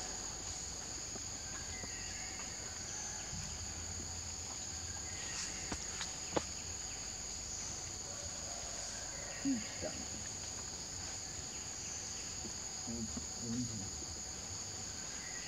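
Steady insect chorus: a continuous high-pitched shrill in two bands. A sharp click comes about six seconds in, and a few short, faint voice-like sounds come later.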